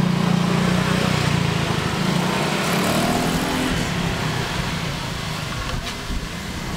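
A motor vehicle's engine running close by with a steady low hum that slowly fades away.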